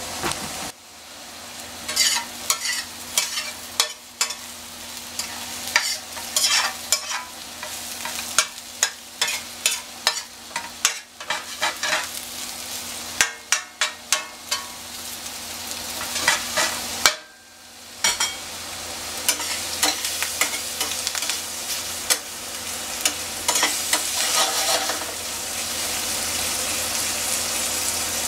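Diced potatoes and ham frying in stainless steel skillets, a steady sizzle, with frequent sharp clicks and scrapes of a spatula stirring the food and knocking against the pan.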